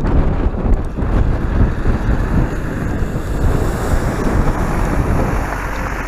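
Wind buffeting the microphone: a loud, uneven low rumble.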